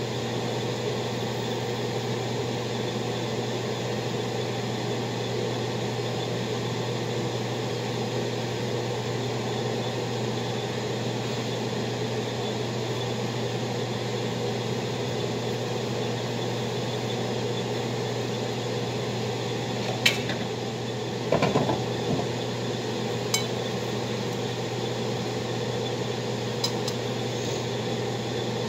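Metal kitchen tongs clicking and clattering a few times about two-thirds of the way in, over a steady hum and hiss of the kitchen.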